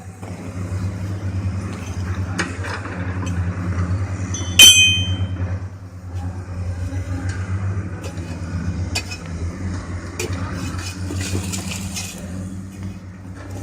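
A heavy machine's engine runs steadily with scattered metallic clinks. About four and a half seconds in comes one loud, ringing metal clank.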